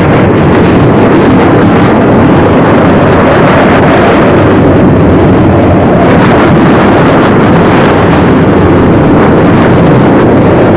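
Loud, steady rushing noise of an RNLI lifeboat under way in heavy seas, with engine, wind and water blended together and no let-up.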